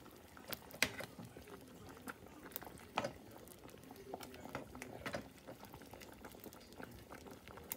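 Thick gravy with chicken meatballs simmering in a metal saucepan, bubbling with small irregular pops, and a few sharp clicks of tongs against the pot.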